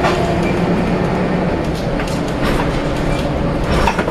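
Volvo B7RLE single-deck bus running: a steady engine and drivetrain drone with body rattles and knocks, the knocks more frequent near the end.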